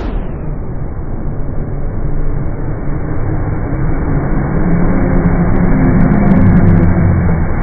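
Steel Venom inverted impulse roller coaster train rushing through the station, its wheels rumbling on the overhead track. The rumble sounds muffled and grows louder about five seconds in as the train sweeps past.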